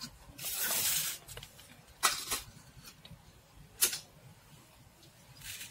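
Stainless-steel plate and bowls being handled on a counter: a short scraping slide, then a few sharp clinks.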